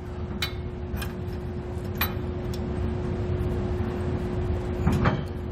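A few light metallic clicks as a hex bolt with split and flat washers is worked up by hand into a truck frame's weld nut, over a steady low hum with a faint constant tone.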